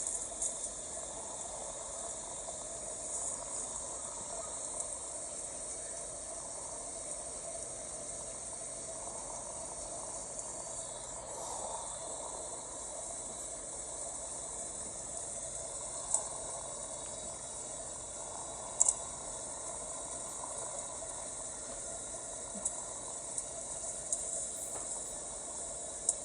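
Steady, high-pitched chirring like night insects, with a few sharp clicks in the second half.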